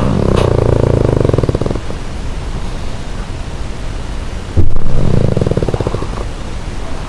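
A pug snoring: two loud, rattling snores about four and a half seconds apart, each lasting a second or more.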